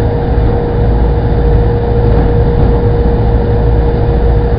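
Boat engine running steadily, heard from aboard: a constant low rumble with a steady hum above it, under a continuous noisy rush.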